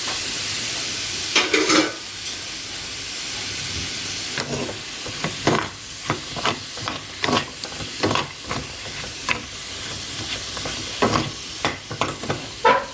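Fried chicken wings sizzling in a pan of caramelising Coca-Cola glaze, with a utensil knocking and scraping against the pan as the wings are tossed, in irregular strokes every half second or so.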